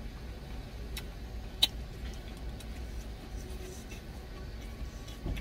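Steady low rumble of an idling vehicle engine heard inside the truck cab, with a few sharp clicks of a plastic spoon against a plastic food container. The loudest click comes about a second and a half in, and there is a low thump near the end.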